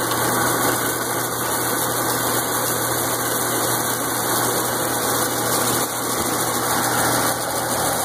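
Aronia berry destemmer running steadily, its rotating rods and paddle lugs churning berries with an even mechanical noise over a constant low motor hum.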